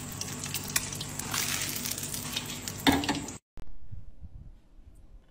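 An egg frying in hot oil in a pan, a dense crackling sizzle, with a brief louder sound near the end of it. It cuts off suddenly and gives way to a faint low rumble.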